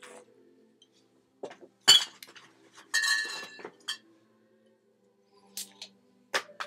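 Glass clinking and knocking as a drink is taken: several separate sharp hits of glass, the loudest about two seconds in, with a short rattling stretch around three seconds in.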